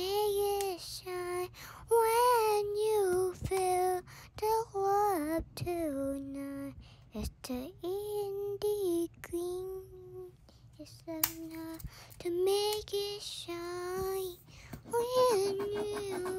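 A child singing a slow tune with no accompaniment, holding long wavering notes with short breaks between phrases. A few sharp clicks come between the notes.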